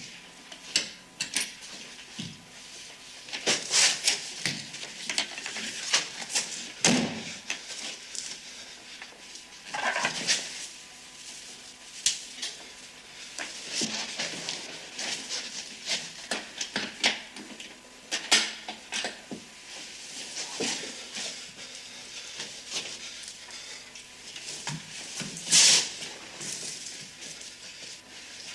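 Scattered small knocks, scrapes and rustles of a person moving about in the dark, with a louder knock a few seconds before the end.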